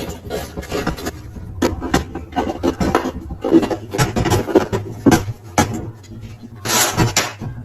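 Metal tools and parts being handled at a workbench: irregular clinks, knocks and scraping strokes, with a longer rasping scrape about seven seconds in.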